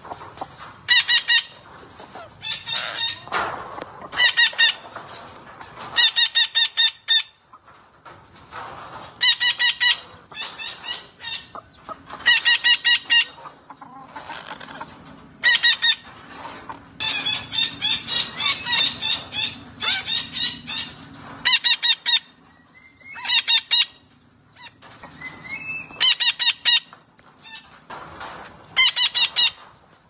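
Psittacula parakeet giving loud, harsh screeching calls in quick bursts of several notes, one bout every two or three seconds.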